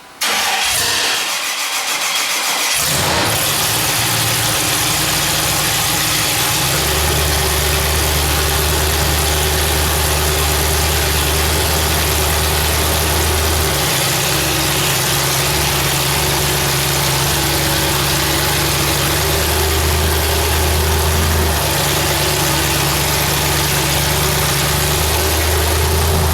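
Super stock demolition derby car's engine starting suddenly and then running loudly for the freshly built car's first test of driving under its own power. Its steady note shifts every few seconds as the car is driven.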